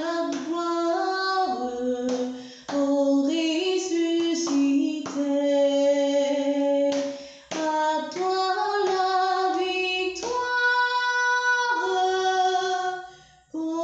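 A woman singing a French Easter hymn, unaccompanied, in phrases of held notes with short breaks between them.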